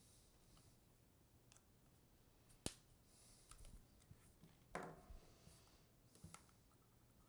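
The plastic casing of a Seagate Backup Slim portable hard drive being pried apart by hand: faint scraping with a few sharp clicks as the snap-fit seam gives. The loudest clicks come about two and a half seconds in and about five seconds in.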